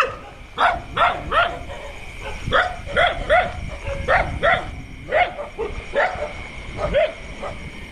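Stray dogs barking repeatedly, in quick runs of two or three sharp barks about half a second apart.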